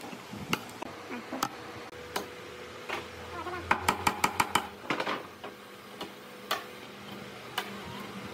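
Claw hammer striking nails into the edge of a pine board: single blows about a second apart, with a quick run of about six light taps a little past halfway. A faint steady hum runs underneath.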